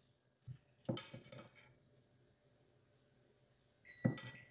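Cutlery and crockery clinking against a china serving plate: a soft knock, a quick cluster of clinks about a second in, and a sharper clink with a short ring near the end.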